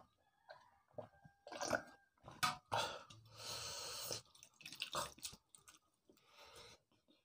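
Eating pakhal (rice in water) by hand from a steel bowl. Slurping from the bowl comes first, then a wet squishing about three and a half seconds in as fingers mix the rice in the water, then chewing.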